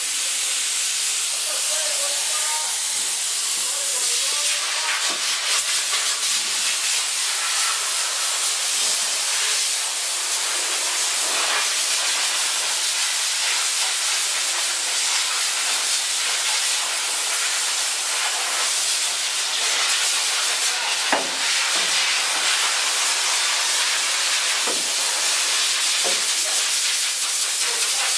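Compressed-air spray gun hissing steadily as it sprays primer onto the bare sheet-metal floor of a car's trunk.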